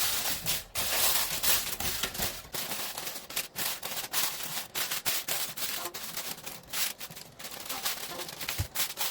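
Irregular crackling and rustling as the rice pot is covered, dense for the first couple of seconds, then sparser.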